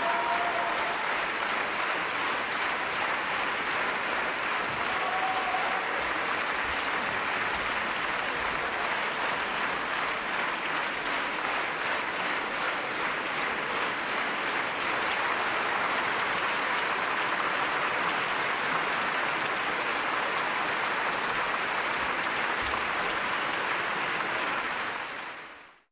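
Large concert-hall audience applauding steadily, a dense even wash of clapping; it fades out quickly at the very end.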